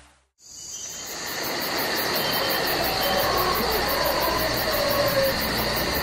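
Insects chirring in a steady chorus, with a fast, even pulsing trill high above. The chorus fades in about half a second in, after a brief silence, and faint bird calls come through in the middle of it.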